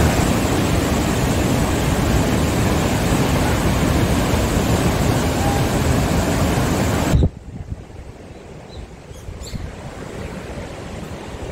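Breaking ocean surf and strong wind buffeting the microphone, a loud, even rushing noise. It cuts off abruptly about seven seconds in, leaving a much quieter outdoor background with a few faint ticks.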